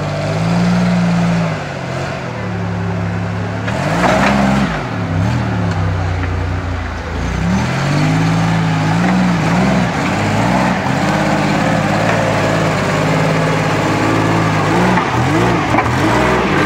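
Off-road trial vehicle's engine working under load, revving up and dropping back again and again as it climbs over rough ground, with a louder surge about four seconds in.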